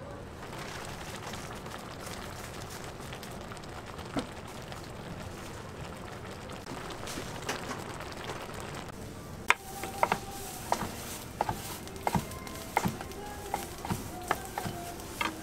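Tteokbokki simmering in a steel pan, a steady bubbling hiss. From about halfway, a knife cuts an egg-roll gimbap on a wooden board, making sharp, irregular taps about one or two a second.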